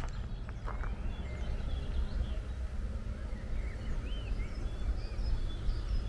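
Small birds chirping with short, high calls, some with quick rising and falling glides, over a steady low rumble.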